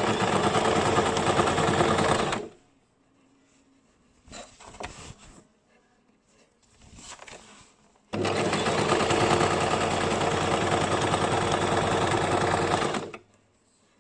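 Electric sewing machine stitching in two steady runs, the first stopping about two and a half seconds in and the second starting about eight seconds in and stopping near the end, with light handling sounds in the pause between.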